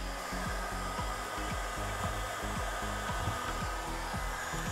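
Hot air gun without temperature regulation blowing a steady rush of hot air onto a circuit board to melt the solder holding a CPU. Background music with a steady low beat plays under it.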